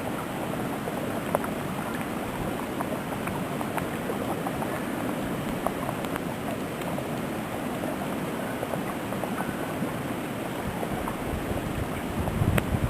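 Wind blowing steadily through a heavy snowstorm, an even hiss with faint scattered ticks. Near the end a gust starts to buffet the microphone with a low rumble.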